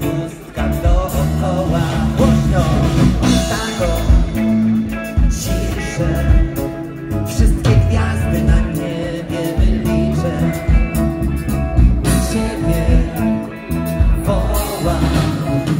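Live rock band playing through a PA, with electric guitars, bass, keyboard and drums, and a voice singing over it at times.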